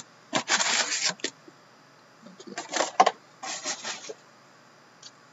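Wrapped trading-card packs and their cardboard box being handled: packs rustling and sliding against each other as they are pulled out and stacked, in a few short bursts.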